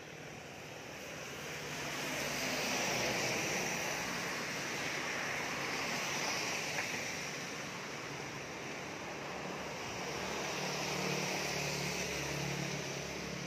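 Wet-street ambience on a rainy day: an even hiss that swells about two seconds in and again around ten seconds in, with a faint low hum underneath near the end.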